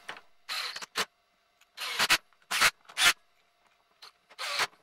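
Screws being driven into the plastic housing of a Ryobi EID 600 RS impact drill: six short, irregular scraping bursts as each screw is turned.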